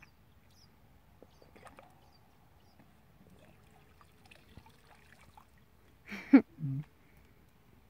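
Young lion playing in a shallow muddy puddle: faint light splashing and dripping of water. About six seconds in comes a sudden loud noise, followed by a short low grunt.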